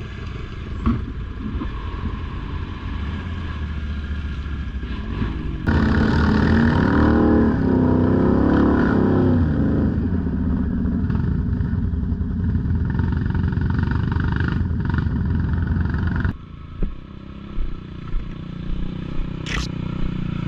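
ATV engine running on an off-road trail, with a louder stretch in the middle where the engine revs up and down before dropping back suddenly to a lower level.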